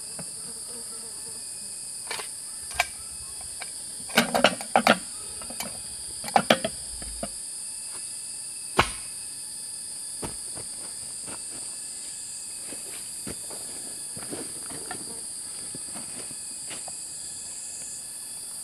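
Steady high-pitched drone of forest insects, with a scatter of sharp knocks and clicks, bunched about four and six seconds in and one more strong one near nine seconds.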